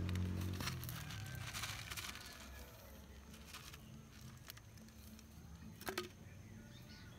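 Faint rustling and a few light clicks of seeds being sprinkled from a foam plate onto potting soil in a plastic seed tray, the sharpest clicks near the end. A low hum fades out within the first second.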